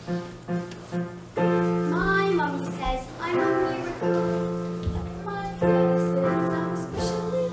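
A musical-theatre song: a few short, spaced chords, then held chords under a young voice singing.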